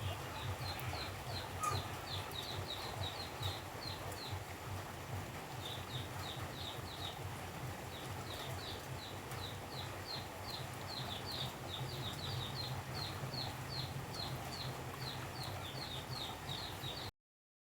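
Tropical rainforest ambience: a steady hiss of rain with a creature's short high chirps repeating about three times a second, pausing briefly partway through. The sound cuts off abruptly near the end.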